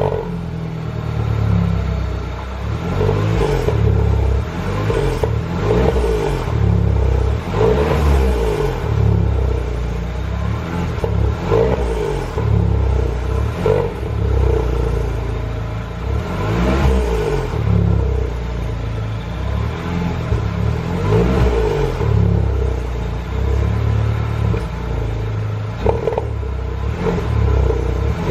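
THP turbocharged petrol engine running after a start, revved up and down several times, with the strange noise the owner is showing.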